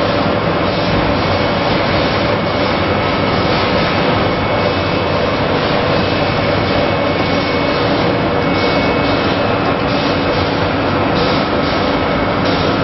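Machinery of a hard candy production line running steadily: a loud continuous motor noise with a couple of thin, steady whining tones over it.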